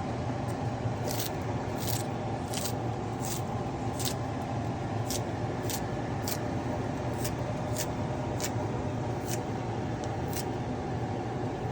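Food frying in a deep fryer: a steady hissing hum with sharp crackles of popping oil, about one or two a second.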